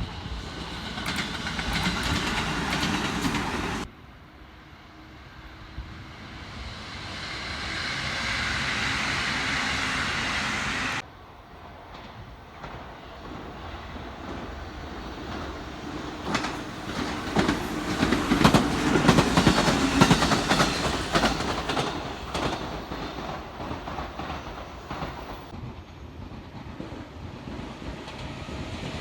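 Trains passing close by, their wheels clattering over the rail joints in a long run of sharp clicks, loudest about two thirds of the way through. The sound changes abruptly twice in the first half, at about 4 and 11 seconds in.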